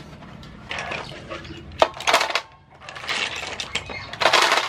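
Sea snail shells dropped by hand into an empty aluminium basin, clattering against the metal and each other. A sharp click comes about two seconds in, then several short bursts of rattling.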